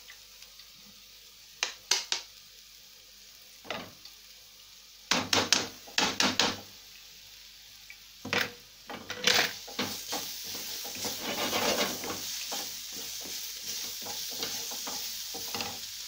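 Carrots sautéing in butter in a frying pan. Utensils knock and scrape against the pan in several short clusters, and from about ten seconds in the pan sizzles steadily.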